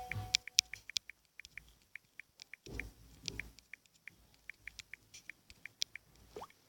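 Light, irregular clicks a few times a second, as of typing on a phone's touchscreen keyboard, with a faint low murmur about three seconds in.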